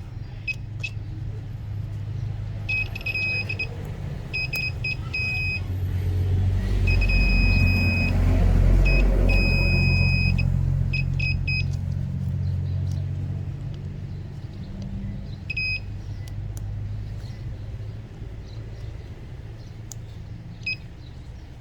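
A steady low rumble that swells for several seconds and then fades, with repeated bursts of short, high electronic beeps.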